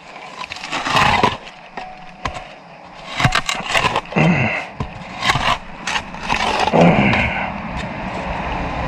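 Irregular scraping, clicking and knocking of hand tools working on the pipe and saddle fitting, with a few sharp cracks. A steady low rumble comes in near the end.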